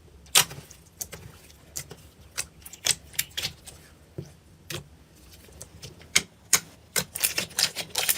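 Slime being squeezed and worked by hand, giving sharp, irregular pops and clicks that come faster near the end.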